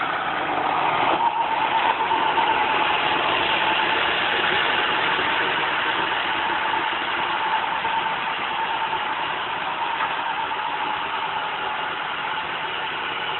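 Roomba robot vacuum running: a steady whirr from its vacuum motor and brushes, with a steady whine above it. It is a little louder in the first few seconds, then grows slightly quieter.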